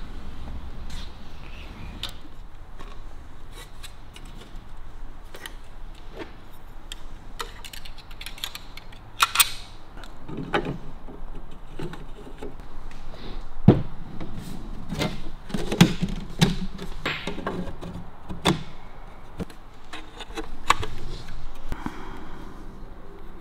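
Irregular clicks, knocks and scrapes of small metal parts being handled: instrument gauges and their bezels being fitted into an aluminium dashboard panel. The sharpest knock comes just past halfway.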